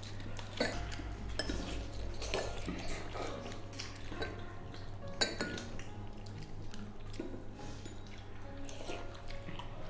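Chopsticks clicking and scraping against porcelain rice bowls during a meal, in irregular clinks, over background music.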